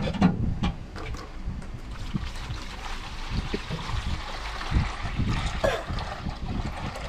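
A few knocks as the square metal tin is handled and opened, then a steady stream of clear liquid pouring from the tin's spout and splashing into a plastic basin, starting about two and a half seconds in.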